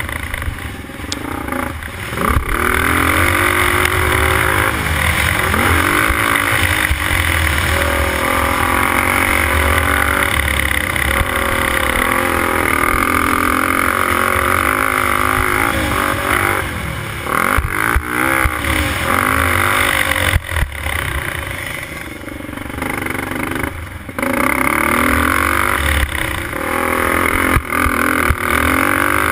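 Racing quad's engine running hard around the track, its note rising and falling again and again with the throttle and gear changes. Several brief drops off the throttle come about two-thirds through.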